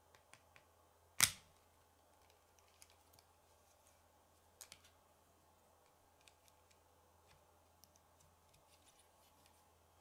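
K'nex plastic rods and connectors clicking and snapping together as pieces are fitted, with one loud sharp snap about a second in, a smaller double click near the middle, and light scattered clicks.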